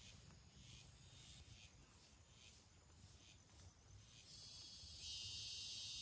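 Faint night insects chirping in a slow, even rhythm, about two high chirps a second. Near the end a steady, louder high-pitched insect buzz sets in.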